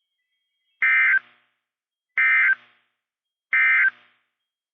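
Three short, identical bursts of NOAA Weather Radio SAME digital data tones, about a second apart: the end-of-message code that closes the warning broadcast.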